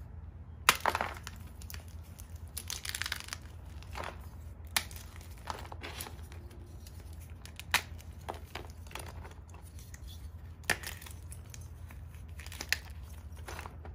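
Blocks of Ader gym chalk (magnesium carbonate) snapped and crumbled by hand. A loud crack comes about a second in, then dry crunching and crumbling with several more sharp snaps every two to three seconds.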